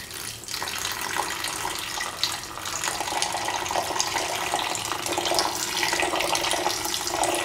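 About 250 ml of water poured in a steady stream into a pan of chicken liver pieces and carrots, splashing onto the food.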